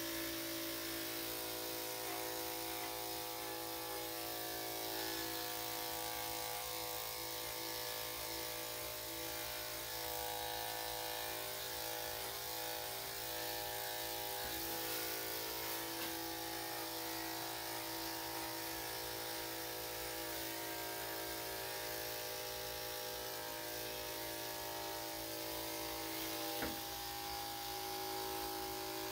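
Electric dog grooming clippers running with a steady hum as they shave a dog's coat, with a couple of small clicks near the end.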